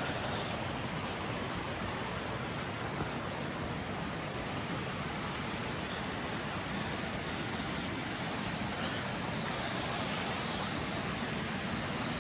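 Steady rushing of a snowmelt mountain stream flowing over rocks.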